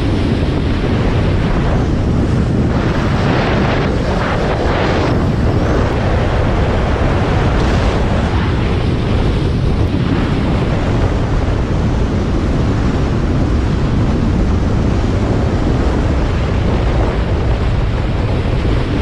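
Loud wind buffeting the microphone of a camera on a car driving at highway speed, a steady rushing noise with a few stronger gusts a few seconds in.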